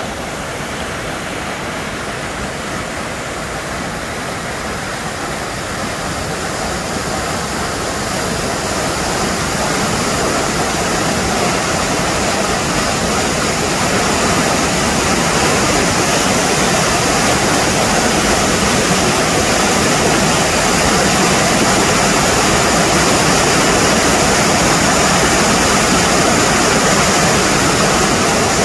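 Creek in high flow rushing down stepped rock ledges in white-water cascades: a loud, steady rush of falling water that grows louder over the first half and then holds.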